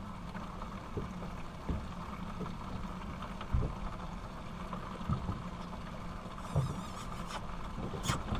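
Small motorboat's engine running with a low steady hum, with a few soft knocks scattered through it.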